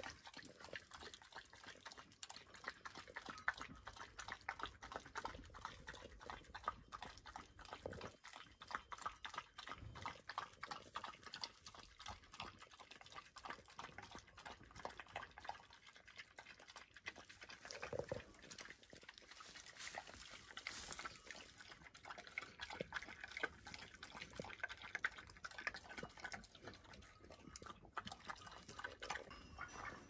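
Dog eating from a bowl: a rapid, steady run of wet chewing, lapping and smacking sounds.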